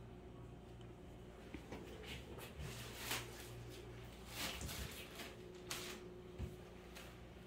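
Quiet room tone with a steady low hum, broken by a handful of soft rustles and light knocks.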